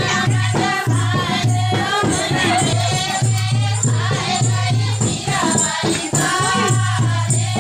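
A group of women singing a folk dance song together over a steady drum beat, with a rattling, jingling percussion.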